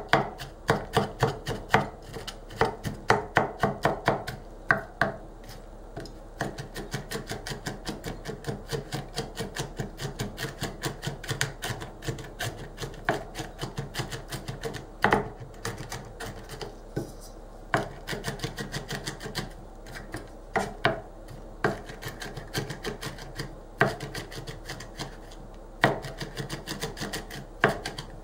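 Ulu knife rocked back and forth through nuts in a white plastic chopping bowl, mincing them: a steady run of short chopping taps, about three to four strokes a second, as the curved blade strikes the bowl. The strokes are louder in the first few seconds and softer after, with a few harder ones scattered through.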